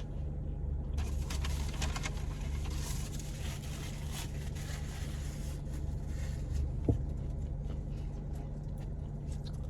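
Steady low rumble of a car heard from inside the cabin, with a brief short sound about seven seconds in.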